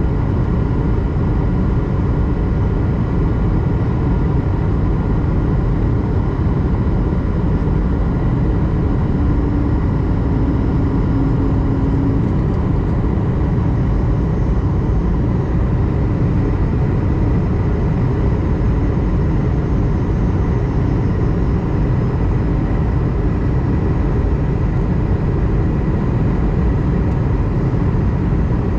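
Steady cabin noise of an Airbus A220-100 airliner in flight: engine and airflow noise with faint steady hums, plus a brief low tone about ten seconds in.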